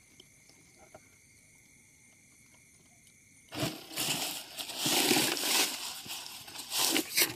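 Faint for the first three seconds or so, then from about three and a half seconds in, loud uneven rustling and crunching of leaves and undergrowth as someone pushes through the brush.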